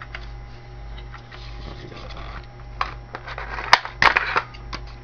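Sharp plastic clicks and rattles from a spring-powered airsoft M4 rifle being handled, starting a few seconds in and bunching together near the end.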